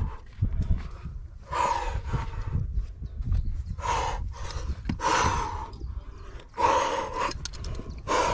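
A climber breathing hard from exertion: a run of loud, forceful breaths, about one every second or so.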